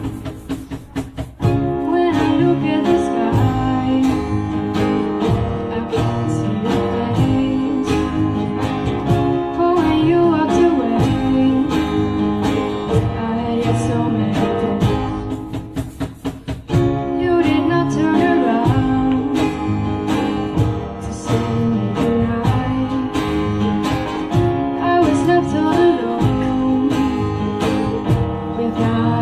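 A band playing a song, with guitar, a steady beat and a singer. The music eases off briefly twice, about a second in and around the middle.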